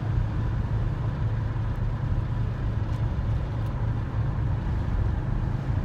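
VW bus driving along: a steady low engine and road drone with no change in pitch.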